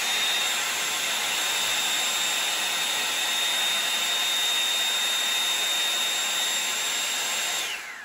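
Revlon One-Step hot-air brush dryer running on its cold-shot setting: a steady hiss of blown air over a high motor whine. The motor winds down with a falling whine near the end.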